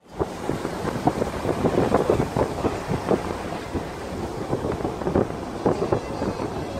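Wind rushing and buffeting against the microphone at the open window of a moving car, with irregular gusty flutters.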